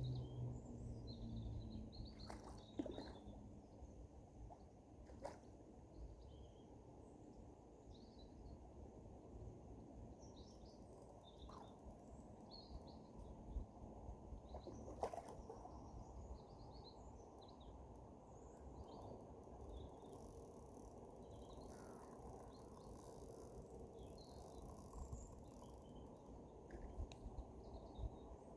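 Faint, scattered bird chirps over a steady low outdoor rumble, with a few brief clicks.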